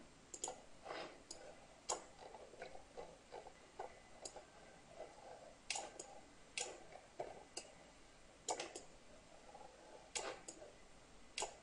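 Faint computer mouse clicks, a dozen or so sharp clicks at irregular intervals, with soft rustling between them as the mouse is moved.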